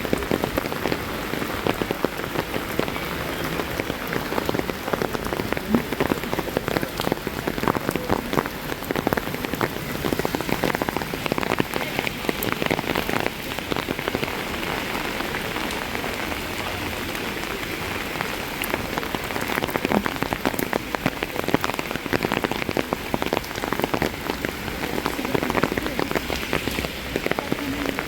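Steady rain falling, with many individual drops hitting close by as sharp little ticks over an even hiss.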